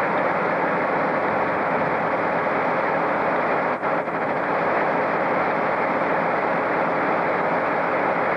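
Locomotive standing close by, its engine and equipment running with a steady, loud noise, briefly dipping twice about four seconds in.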